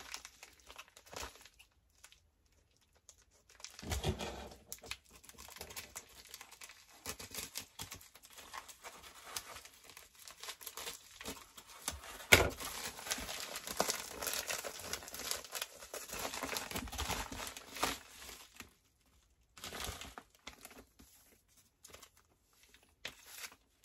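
Packaging rustling and crinkling as items are unwrapped and handled, in irregular spells with short pauses, and one sharp tap about halfway through.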